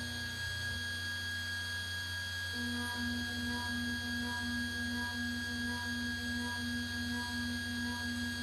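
6040 CNC router running during a thread-milling pass on steel: a steady whine from the spindle, joined about two and a half seconds in by a low tone that pulses about three times a second.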